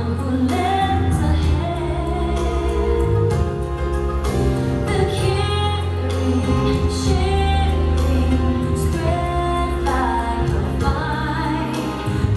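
Show soundtrack music with a female singer over a steady bass line and beat.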